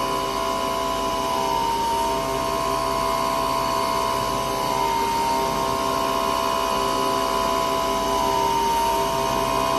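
CNC milling machine machining an alloy piece: a steady whine over a hiss, its pitch stepping slightly every few seconds.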